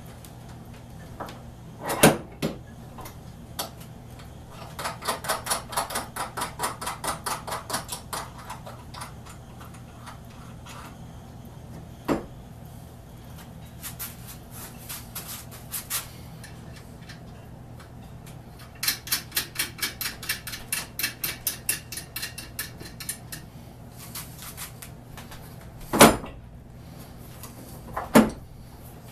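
Ratchet wrench clicking in two quick runs of about six clicks a second while mounting bolts are turned, with a few sharp knocks of metal tools against the bench in between, the loudest a little after the start and near the end.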